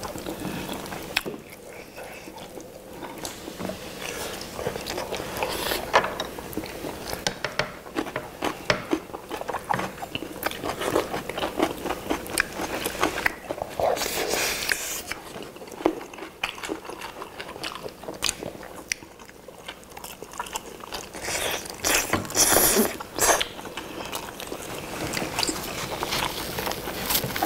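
People biting into and chewing sauce-glazed roast chicken legs, with many short wet clicks of mouth and meat, and a few louder stretches in the middle and near the end.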